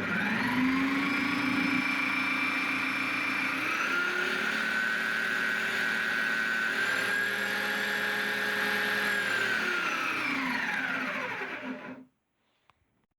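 Electric drill motor of a homemade disc sander running with a steady whine. Its speed is raised about four seconds in and a little more near seven seconds, as with a speed regulator, then it winds down and stops about twelve seconds in.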